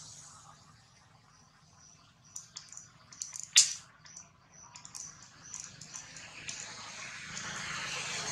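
Baby long-tailed macaque eating fruit: scattered wet smacks and clicks from its chewing, the loudest a sharp click about three and a half seconds in, over a faint steady hiss.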